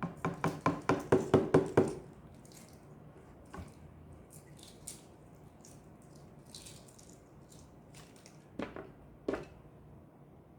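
Sauce glugging out of a tipped bottle: a quick run of about a dozen gulps, getting louder over two seconds. Two light knocks follow near the end.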